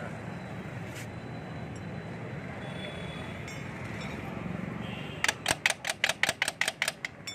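A hand tool working metal on a motorcycle's rear wheel axle and hub. Over a steady low rumble, a quick run of about ten sharp metallic clicks comes near the end, about five a second.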